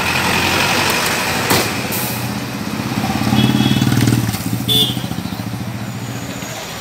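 A Tata police van and motorcycles drive slowly past at close range, their engines running. The engine noise swells a little past halfway as a motorcycle comes by, and there are a few short sharp clicks.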